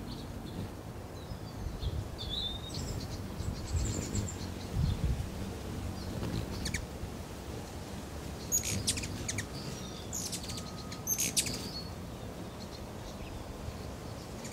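Hummingbirds giving sharp, high chip notes: a few scattered calls in the first half, then two quick rattling clusters of chips about nine and eleven seconds in. A low steady rumble runs underneath.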